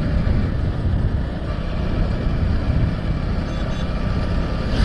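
Motorcycle riding at a steady speed along a paved road, heard from the rider's seat: the engine runs evenly with a low rumble of wind and road noise and no change in pace.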